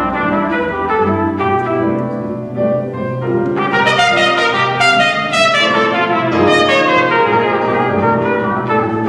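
Trio of trumpet, grand piano and upright double bass playing live; the trumpet carries the melody in a run of notes over piano and bass, turning brighter about three and a half seconds in.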